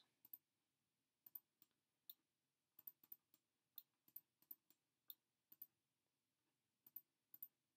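Faint computer mouse clicks, irregular and often in quick pairs, as model parts are shift-clicked one by one to select them.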